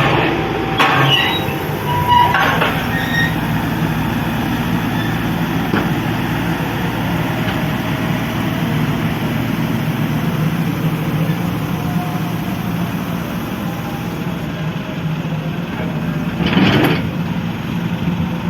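Diesel engine of heavy construction machinery running steadily, with a few louder bursts of noise a second or two in and again near the end.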